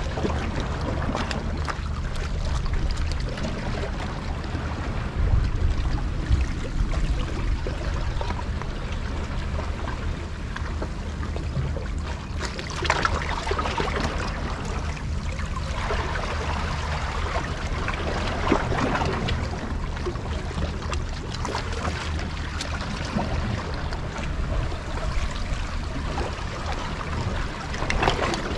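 Wind buffeting the microphone as a steady low rumble, with small waves lapping and sloshing against the rocks at the water's edge and a few louder washes about halfway through and near the end.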